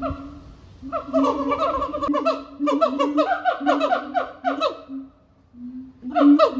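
Siamangs calling in chorus: a quick run of short, falling whooping notes that speeds up, breaks off briefly about five seconds in, then starts again.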